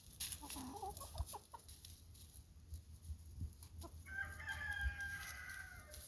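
Roosters clucking briefly, then one rooster crowing for about two seconds near the end.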